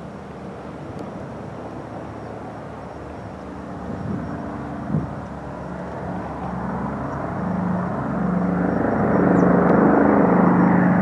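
Canadair CL-215's two Pratt & Whitney R-2800 radial piston engines at takeoff power as the plane climbs out, a steady propeller drone that grows louder over the second half.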